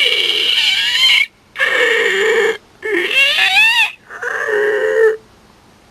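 A man vocally imitating creaking, squeaky truck door hinges: four drawn-out squeals, each about a second long, wavering up and down in pitch.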